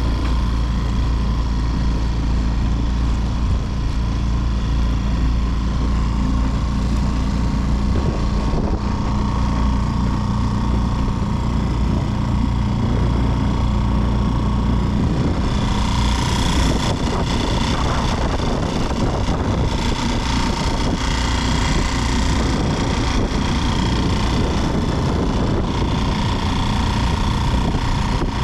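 Mercury F3.5 four-stroke single-cylinder outboard running steadily under way, pushing an inflatable boat, with a hiss of water and wind that grows louder about halfway through. It runs without cutting out since an extra, wrongly fitted filter was removed, which the owner takes as confirmation that the filter caused its earlier stalling.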